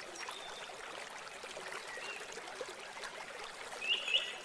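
A steady trickle of running water with small birds chirping now and then: short high chirps, and a clearer quick pair of chirps near the end.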